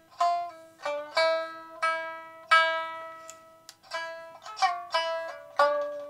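Shamisen played solo as a kouta accompaniment with the vocal part left out, pitched in the high 8-hon key: single plucked notes, about two a second, each with a sharp twang that rings and fades. One note bends down in pitch about two-thirds of the way through.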